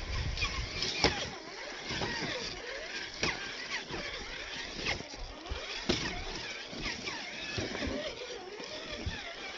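Electric motor and geared drivetrain of a Traxxas TRX-4 scale RC crawler whining, rising and falling in pitch with the throttle. Sharp clicks and knocks are scattered through it.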